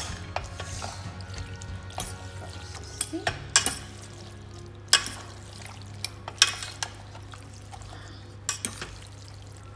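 Spaghetti in a creamy carbonara sauce being tossed with a wooden spoon and a metal fork in a metal pot: wet stirring sounds with irregular sharp clinks of the utensils against the pot, about a dozen in all. A low steady hum runs underneath.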